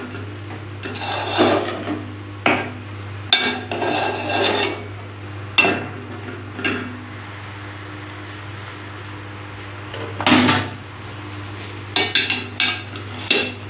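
A metal spoon stirring and scraping through a thick creamy chicken curry in an aluminium pot, with irregular clinks and scrapes against the pot's side. There is a quieter lull of a few seconds in the middle, and a low steady hum runs underneath.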